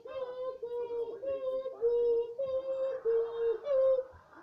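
A two-tone emergency siren sound for the arrived rescue vehicles, alternating between two close pitches every half second or so, with a short break near the end.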